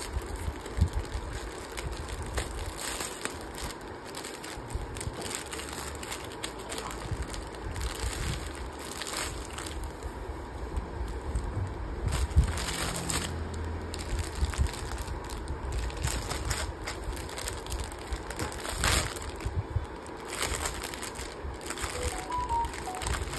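A plastic courier mailer being torn open and a clear plastic garment bag being handled: irregular crinkling and rustling of plastic packaging, with sharp crackles.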